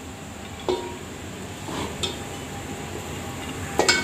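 A metal serving spoon clinking against dishes three times as cooked fried rice is scooped out: short sharp knocks that ring briefly, about a second in, about two seconds in and near the end.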